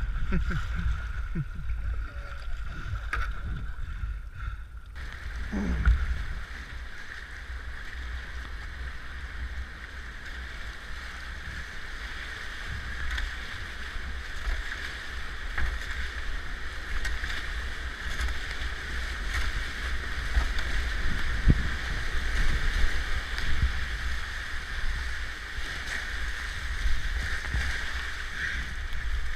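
Whitewater rushing and splashing close around a kayak running river rapids, picked up by a camera mounted on the kayak's bow, with low buffeting rumble and paddle splashes. The rush grows fuller and brighter about five seconds in.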